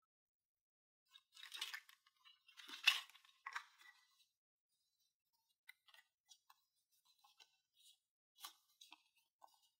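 Small toy pieces and packaging handled: a cluster of crinkles and clinks between about one and four seconds in, loudest near three seconds, then scattered light clicks and taps.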